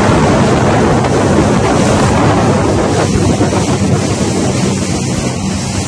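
Wind buffeting the microphone over rushing water from a motorboat running at speed, with a steady engine hum underneath.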